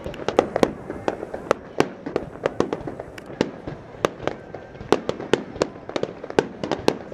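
Fireworks display: a rapid, irregular string of sharp pops and bangs, several a second, as shells burst overhead.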